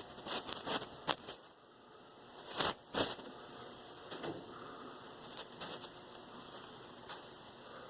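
Irregular light scratching and clicking, with a sharp click about a second in and a louder scrape near three seconds, then scattered faint ticks.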